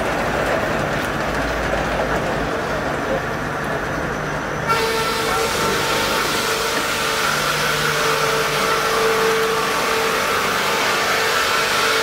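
A sawmill line's log conveyor and saw motors running with a steady mechanical rumble and hum. About five seconds in the sound changes abruptly to a brighter machine noise with a steady whine.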